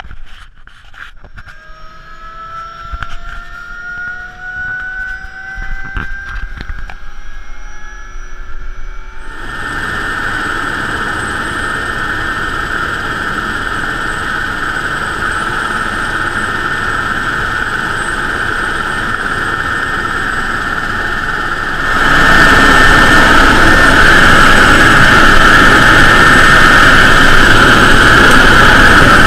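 Super Puma helicopter's turboshaft engines spooling up, a whine rising slowly in pitch with a few clicks. About nine seconds in, it gives way to the steady loud din of the helicopter in flight heard from inside the cabin with the side door open, a strong high hum over rushing noise, stepping up louder about twenty-two seconds in.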